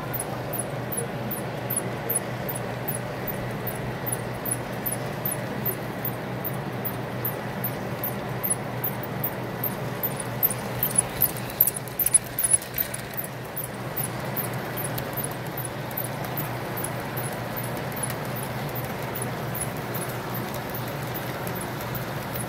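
O-scale three-rail model freight cars rolling past, their wheels clicking steadily over the track joints, about three clicks a second, over a steady low hum. About halfway a short run of louder clacks stands out.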